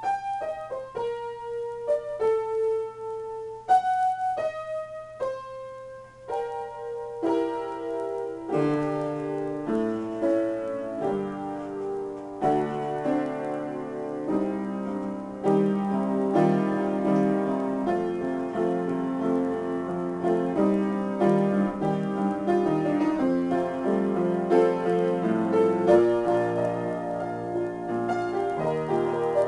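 Solo piano improvisation: a slow melody of single notes, then fuller chords with lower bass notes coming in about eight seconds in and the playing growing denser.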